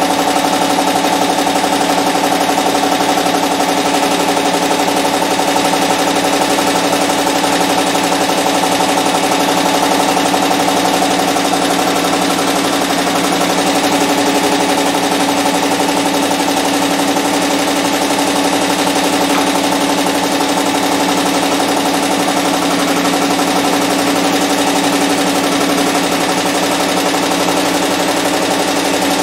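Barudan multi-needle commercial embroidery machine running steadily as it stitches a logo onto a cap held in its cap frame.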